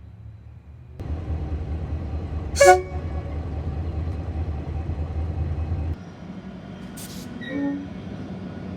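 Diesel locomotive running with a heavy low rumble, giving one short horn blast about two and a half seconds in. After a cut, a brief hiss and then a second short horn toot near the end.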